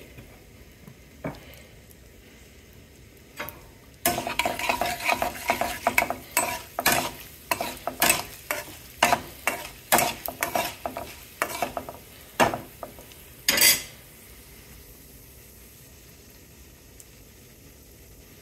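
A metal spatula stirring and scraping in a metal kadai, in quick strokes about twice a second from about four seconds in until about fourteen seconds. Under it, oil sizzles gently around dal seeds and dried red chillies being tempered.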